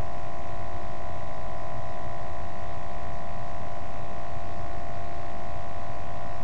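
Steady electrical hum and hiss with several held tones, unchanging throughout; no building clicks or other events stand out.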